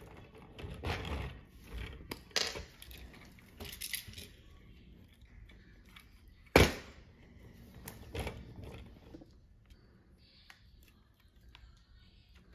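Plastic Lego pieces and a built Lego car being handled: scattered light clicks and clatter, with one sharp click about six and a half seconds in.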